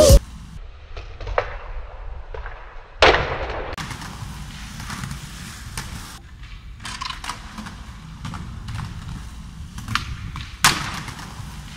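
Skateboard on concrete: sharp cracks of the board slapping or landing on concrete about three seconds in and again near the end, with wheels rolling over concrete and small clicks in between.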